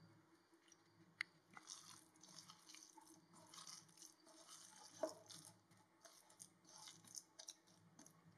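Hand squeezing and kneading crumbly ragi flour dough in a bowl: faint, crackly, squelching rustles, with a sharp click about a second in and a knock about five seconds in.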